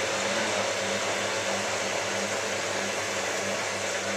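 Hotpoint 9534A washing machine running a steady whir while draining the water out before the spin, with a low hum that pulses about three times a second.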